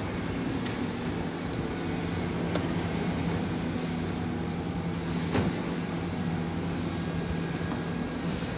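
An engine running steadily at a constant speed, with a few sharp knocks, the loudest about five seconds in.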